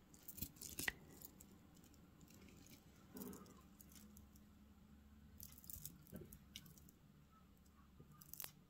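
Faint, scattered clicks and light rattles of milk-glass beads and a gold-tone chain knocking together as the beaded choker is handled, over near silence.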